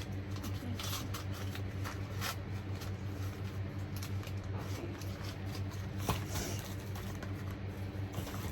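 Packages and wrappings being handled and unpacked: irregular rustling and small clicks, over a steady low hum.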